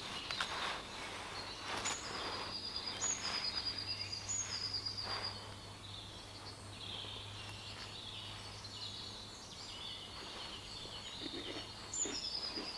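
Small songbirds singing in woodland, one repeating a short phrase, a high note dropping into a quick trill, several times, with a few soft rustles as a cloth tea towel is unfolded and laid out.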